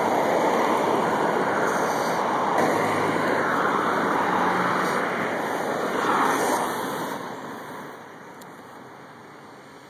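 Road traffic passing alongside: a steady rush of tyre and engine noise that fades away about seven seconds in.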